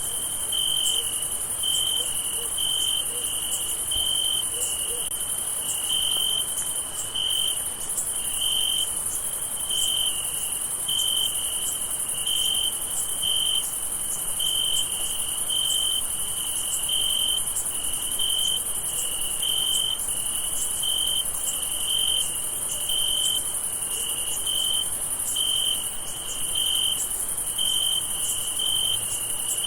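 Crickets chirping at night: a continuous high trill, with a lower chirp repeating evenly a little more than once a second.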